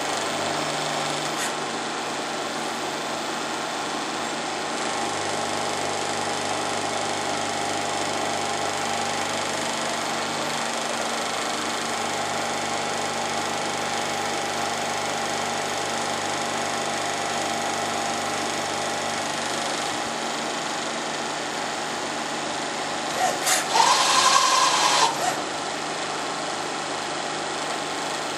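CNC turning-milling center running: a steady machine hum whose tones shift a few times. About 23 seconds in, a loud burst of hiss with a whistling tone lasts about two seconds.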